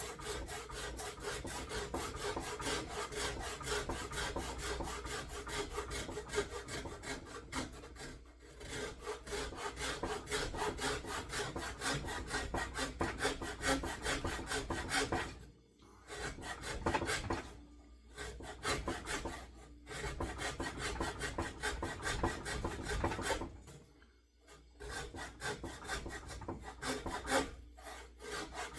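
Shinto saw-rasp scraping across a wooden axe handle in rapid, steady strokes. A few brief pauses come in the second half.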